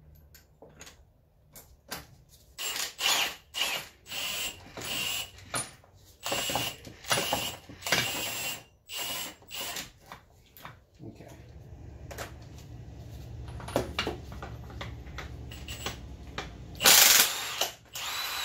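Cordless impact wrench turning the screws of coil-spring compressors on a car strut, in a string of short hammering bursts. After that comes a quieter, steady low hum, and near the end one more loud burst.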